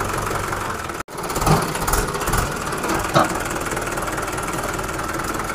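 Diesel tractor engine running steadily. The sound cuts out for an instant about a second in. Three short, louder knocks follow over the next two seconds.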